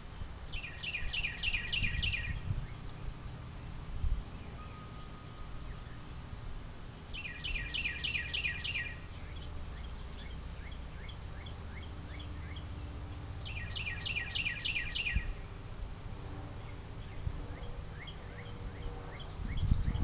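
A songbird singing three short bursts of rapid repeated notes a few seconds apart, with thin high chirps in between, over a steady low rumble.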